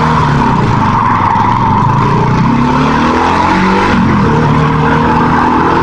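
Motorcycle engine pulling away and accelerating, its pitch climbing and dropping back as the gears change, over a steady hiss, heard from the rider's helmet.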